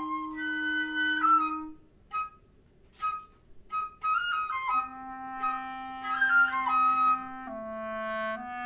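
Flute and clarinet duet. The clarinet holds a low note under the flute's moving line, then about two seconds in the music breaks into short, scattered detached notes separated by pauses. About five seconds in, both instruments resume sustained playing, the flute adding quick flourishes over the clarinet's held low notes.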